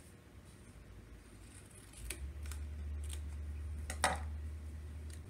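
Scissors snipping a short cut into folded cardstock, with a few sharp clicks and a louder clack about four seconds in as the scissors are set down on the table.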